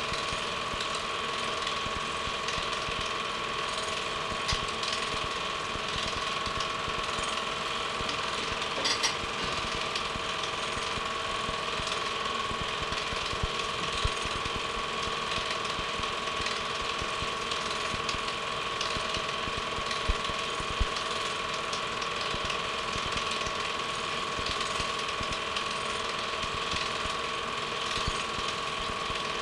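Film projector running: a steady mechanical clatter with a constant hum, and a few louder clicks.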